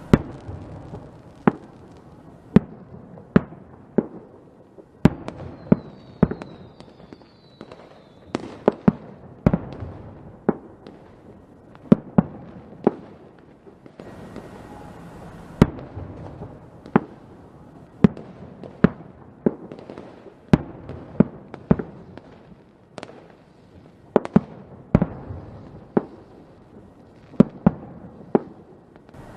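Fireworks going off: a continuous string of sharp bangs at irregular intervals, about one or two a second and sometimes in quick clusters, over a low rumble between them. A few short falling whistles sound about six to eight seconds in.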